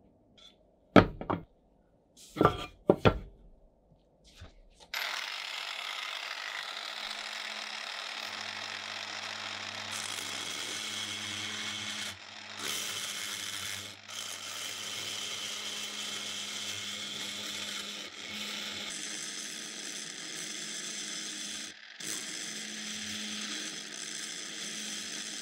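A few loud knocks as the metal flashlight housing is handled. From about five seconds in, a handheld rotary tool spins a carbide burr against a rivet head on the housing, grinding it off: a steady high whir broken by a few short gaps.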